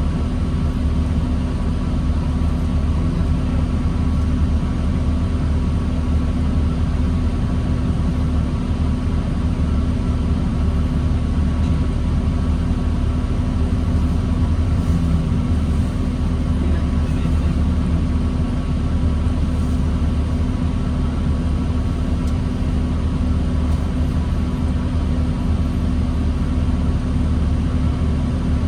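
Steady low drone of a New Flyer D40LFR diesel transit bus heard from inside the cabin, with a constant hum over it and no clear rise or fall in pitch.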